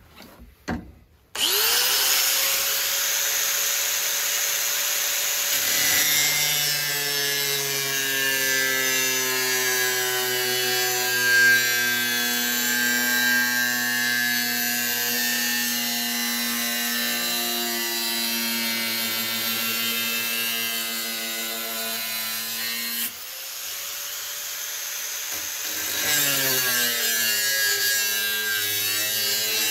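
An electric power tool spins up about a second in and cuts through faceplate stock, its motor whine dropping and wavering in pitch under the load of the cut. About 23 seconds in it stops briefly, then spins up again and carries on cutting.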